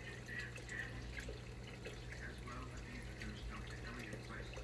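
Faint scattered light clicks and ticks over a steady low hum.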